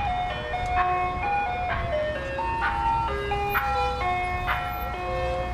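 Ice cream truck's chime playing a simple tune of bell-like notes, about one struck note a second. Underneath is the low rumble of the truck's engine, which grows a little louder near the end as the truck approaches.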